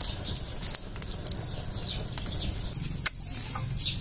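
Open wood fire burning and crackling, with scattered pops and one sharper snap about three seconds in.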